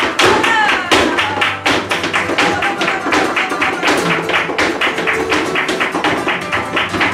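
Live flamenco alegrías: rapid, dense hand-clapping (palmas) and the dancer's footwork strikes over Spanish guitar.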